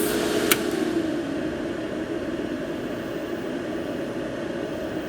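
Cooling fan of an APT 250 A DC inverter welding machine running on after the machine is switched off, a steady whirring rush that slowly fades. There is a sharp click about half a second in. The fan keeps running as a safety measure to cool the machine down.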